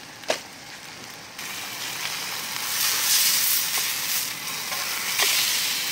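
Steak sizzling in a small frying pan on a camp stove; the sizzle steps up about a second and a half in as the steak is turned and pressed onto the hot pan. Two light clicks, one just after the start and one near the end.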